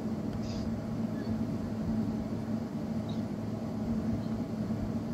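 A steady low hum, with a few faint small clicks about half a second and three seconds in.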